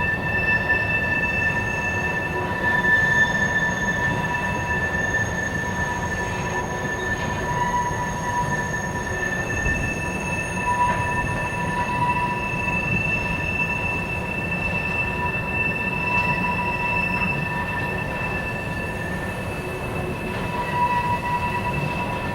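Freight train of tank cars rolling past, its wheels squealing in steady high-pitched tones over a continuous rumble.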